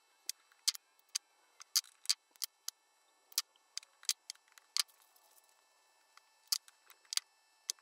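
Sharp, irregular clicks of stainless safety wire and pliers being handled at a bench vise while the wire is twisted into hook hangers, with a lull about five seconds in.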